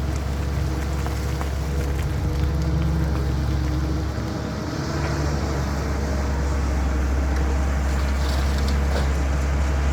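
Diesel engine of a CAT 320 hydraulic excavator running steadily at work, a deep drone that eases briefly about four seconds in and then picks back up.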